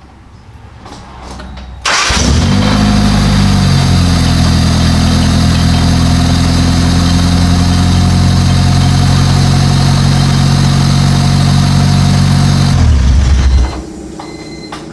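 Honda Civic engine firing up for the first time after being reinstalled, running loud with no exhaust fitted: it catches about two seconds in, settles into a steady idle, then drops and shuts off abruptly near the end.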